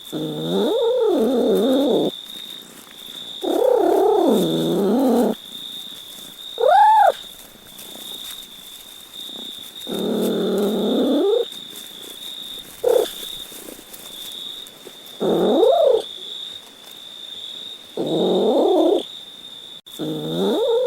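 Cat meowing over and over: a string of drawn-out meows one to two seconds long whose pitch rises and falls, with a short, higher meow about seven seconds in and a brief one near thirteen seconds. A steady high-pitched whine runs underneath.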